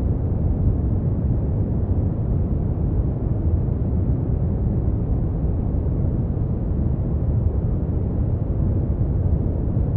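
Steady, deep, unchanging noise with most of its weight in the bass and little hiss on top, played as a tinnitus-masking sound.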